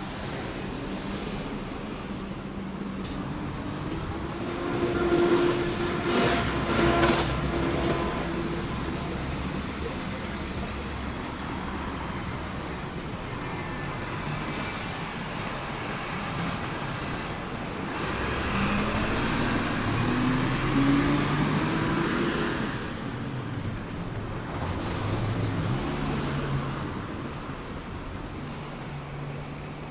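Street traffic: road vehicles passing, the loudest about a quarter of the way in, and a heavy vehicle's engine rising in pitch in steps as it pulls away about two-thirds of the way in.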